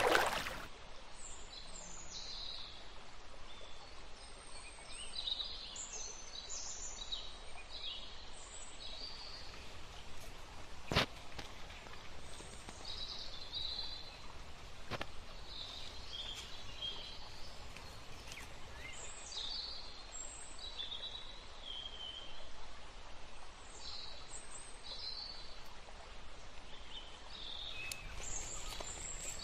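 Small birds chirping and calling on and off over a steady faint background hiss, with a single sharp click about a third of the way through.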